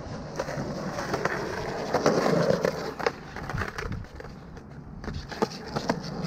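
Skateboard wheels rolling on concrete, then the deck sliding in a boardslide along a waxed curb edge, loudest about two seconds in. Sharp clacks of the board follow as it rocks back down and rolls away backwards.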